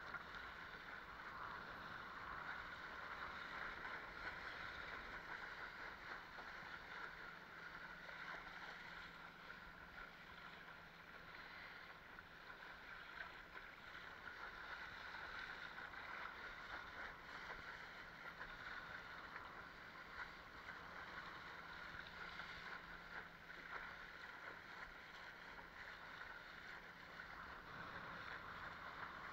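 Water rushing and splashing steadily along a Fanatic Ultra Cat longboard windsurf board's hull as it sails, with wind on the microphone.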